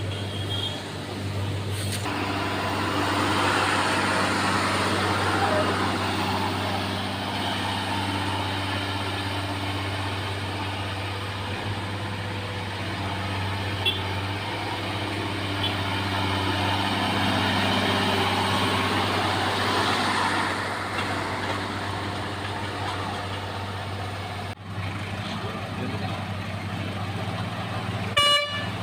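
Heavy diesel engines of road construction machinery running steadily, with the noise swelling and easing twice. A short horn toot sounds near the end.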